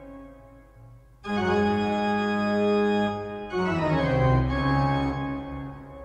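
Organ playing sustained chords: a held chord fades away, a new full chord enters about a second in, and a falling line in the bass comes about three and a half seconds in before the sound dies down near the end.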